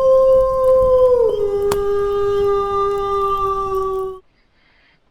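A single long wolf howl: it rises at the start, holds a steady pitch, drops a little about a second in, holds again and cuts off suddenly about four seconds in. A short click comes partway through.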